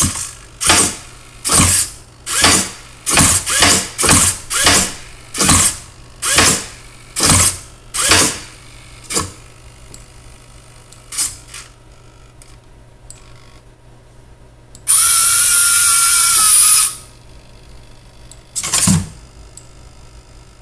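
Small electric drive motors of a 3D-printed tracked robot whirring in short bursts, about one a second, as it is driven jerkily and throws itself about. About fifteen seconds in the motors run without a break for about two seconds, the loudest part, then give one more short burst.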